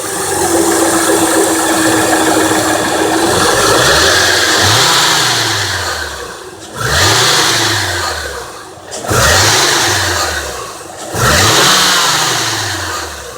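2003 Honda Accord's 3.0 L V6 being revved again and again, its pitch climbing and falling back about every two seconds, with a bell-like metallic rattle over it. The owner's leading theory for the rattle is a loose piece rattling inside the exhaust: broken catalytic converter honeycomb or a loose flex-pipe liner.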